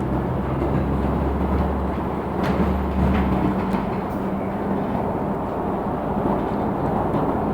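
Inside a LiAZ 6213.65 articulated city bus under way: steady engine and road noise. A couple of sharp rattles come a little over two and three seconds in, and the low engine tone changes about three and a half seconds in.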